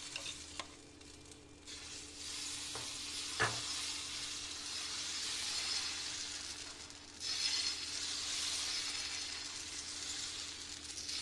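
Semolina batter sizzling on a hot iron griddle as it is poured and spread with a steel ladle. The hiss swells about two seconds in and again about seven seconds in, with one sharp clink of the ladle against the pan about three and a half seconds in.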